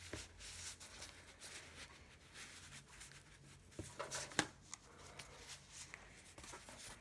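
A pile of floppy disks being handled and shuffled through: light sliding and rustling with scattered clicks, the sharpest a little past four seconds in.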